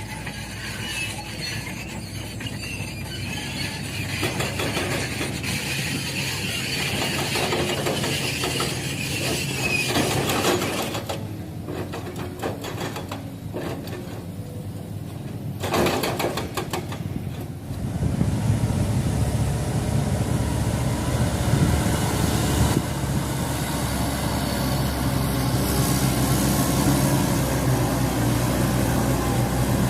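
Heavy diesel machinery engine running steadily, growing louder and heavier about two-thirds of the way through.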